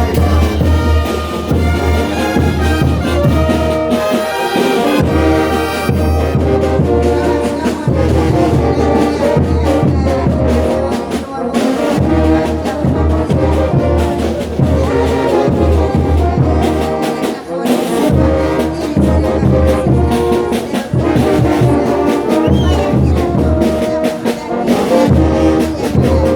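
Bolivian brass band playing a carnival tune: trumpets and trombones carrying the melody over a heavy, pulsing bass and percussion.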